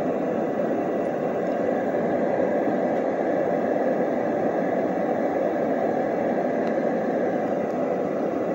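A fan running steadily: an even low whoosh with a faint steady high tone above it, unchanging throughout.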